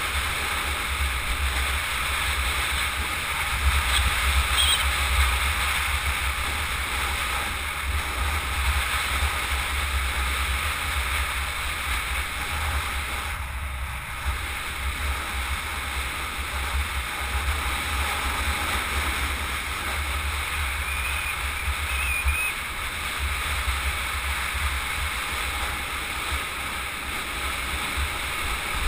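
Steady wind buffeting and rushing over a helmet-mounted camera's microphone on a fast bicycle ride, a deep rumble under a constant hiss.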